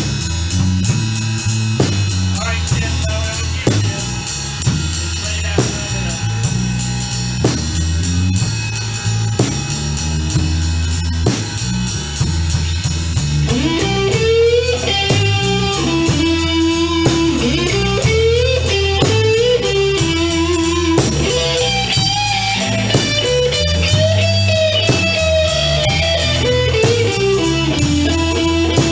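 Blues-rock band playing instrumentally: a bluesy electric bass riff in E with a drum kit keeping a steady beat, and a lead guitar coming in about halfway through with bent notes.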